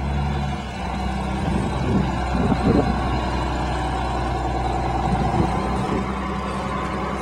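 Large bus engine running as the bus pulls away, a steady low engine drone with a shift in tone about five and a half seconds in.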